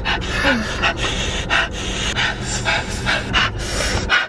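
A person panting fast and hard through an open mouth, about three sharp breaths a second, from the burn of an extremely hot chili-sauce chicken wing.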